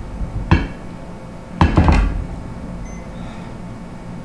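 Knocks on a tabletop: one sharp knock, then a quick run of about four knocks a second later.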